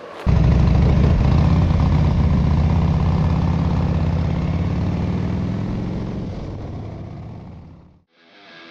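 Harley-Davidson motorcycle engines running, loud at first and fading steadily away, then cut off near the end.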